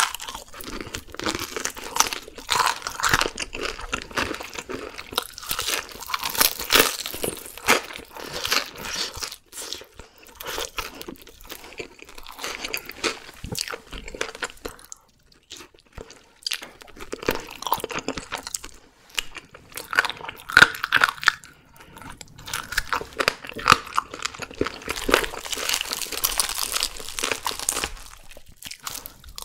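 Close-miked crunching and chewing of crispy deep-fried whole chicken, bite after bite, with a quieter pause about halfway through.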